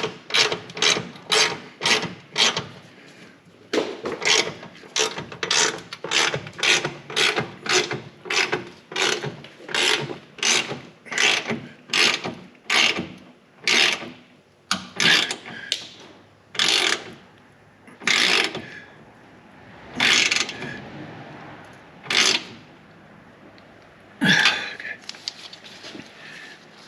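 Hand ratchet wrench clicking in quick repeated swings, about two a second, tightening exhaust clamp nuts. About halfway through the swings slow to a few single, spaced strokes.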